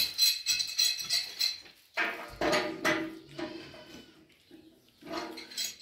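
Rapid metallic clinking and clicking of a hand tool working on the fittings of a water heater tank, lasting about the first second and a half. After that, a pitched, voice-like sound comes at about two seconds and again near the end.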